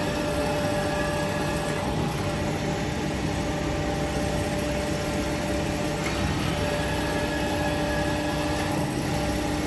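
Kent hydraulic surface grinder running: a steady mechanical hum of its motors and hydraulic unit, with a faint click about two seconds in and another about six seconds in, as the table is fed crosswise.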